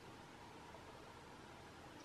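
Near silence: faint, steady outdoor background hiss with no distinct sound.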